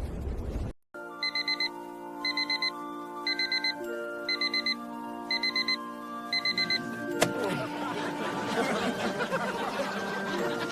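Digital alarm clock beeping in quick groups of four, about once a second, over sustained music chords. The beeping stops about seven seconds in, at a sharp click, after which a busier, noisier sound joins the music.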